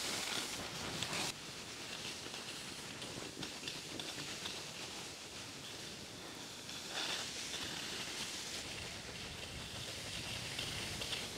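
Skis sliding over snow: a steady hiss, with louder swishes near the start and about seven seconds in.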